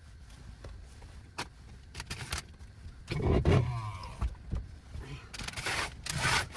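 Someone moving about in and getting out of a small camper van: a few clicks, a loud thump with a sliding scrape about three seconds in, like a vehicle door being worked, then rustling near the end.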